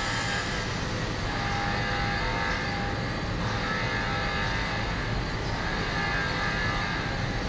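Steady drone of workshop machinery running, a low rumble with a few steady whining tones over it.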